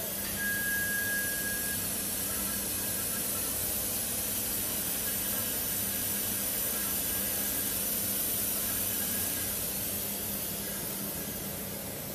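Laser tube-cutting machine running a stent cut: a steady hiss, with a brief high whistle about half a second in, easing slightly near the end.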